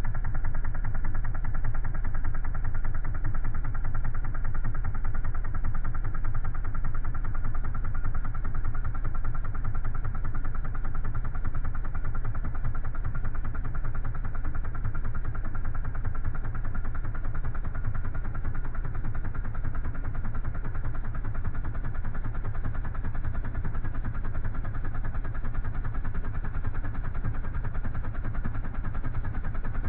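Sundown Audio XV.3 12-inch subwoofer, its tinsel leads freshly repaired, playing music. A steady, loud sound made mostly of deep bass.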